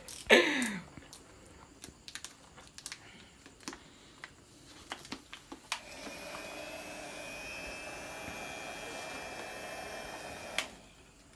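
Electric hot-air blower running steadily for about five seconds, from about six seconds in, cutting off sharply near the end, as used to soften vinyl decal film on a scooter. Before it, a short sound sliding down in pitch just after the start, then scattered light taps and clicks of handling.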